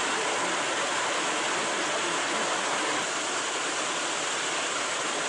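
Heavy rain pouring down steadily, a dense even hiss of rain on a road and palm foliage, dipping slightly about three seconds in.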